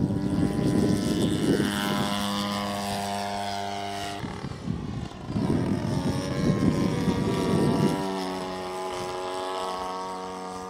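Petrol engine of a large scale model P-47 Thunderbolt running at high power, a steady engine-and-propeller note through the take-off run and climb. About four seconds in it gives way to a few seconds of rough, noisy rumble, then the steady note returns and slowly fades as the plane climbs away.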